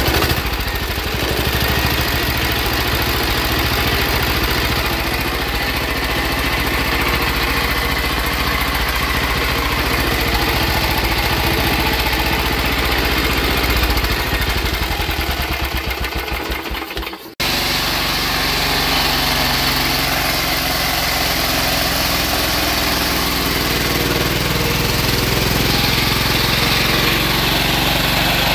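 Small single-cylinder diesel engine converted to run on woodgas, running with a steady firing beat; near the middle its beat slows and the sound dies away as it winds down. After an abrupt break it is heard running steadily again.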